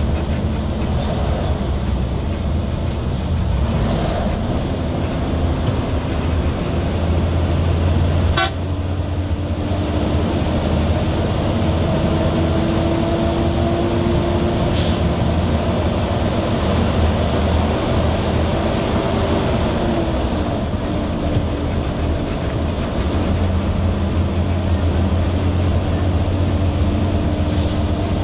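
Road vehicle driving: steady low engine and road rumble, with a whine that climbs slowly for about fifteen seconds and then drops about twenty seconds in.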